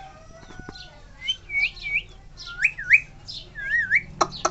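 A pet male ring-necked parakeet whistling a few clear swooping notes, one with a wavering rise and fall, then a quick run of short sharp notes near the end.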